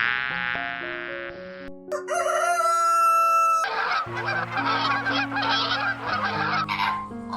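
Farm fowl calling: two long, drawn-out calls, then rapid overlapping clucking and chatter from the second half onward, over background music.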